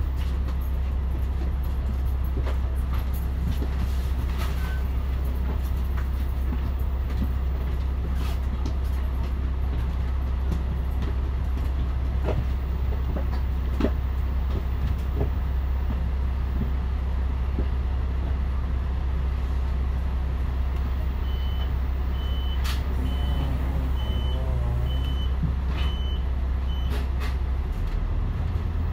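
Volvo D10A-285 diesel engine of a double-decker bus idling steadily, heard from inside the bus, with its note changing near the end. In the last third, another vehicle's reversing alarm sounds a run of high beeps, about three every two seconds.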